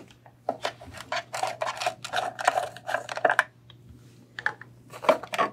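Clicks and clattering knocks of a record cleaning machine being handled, as the vacuum arm is moved aside and the record clamp is taken off the platter. A faint steady low hum runs underneath.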